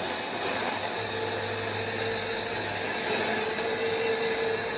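Philco PMX600 hand blender's motor running at speed 2, its stronger setting, spinning the mini chopper blade through garlic in the plastic bowl. A steady whine over a low hum, with a steady higher tone coming in about a second in; it stops near the end.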